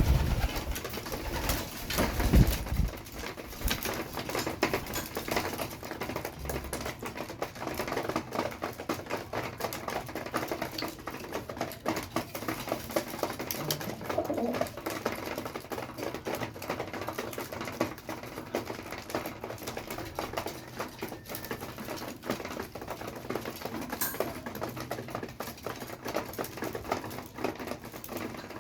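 Pigeons feeding, with a rapid, irregular tapping of beaks pecking grain and some cooing. There are a few louder thumps in the first few seconds.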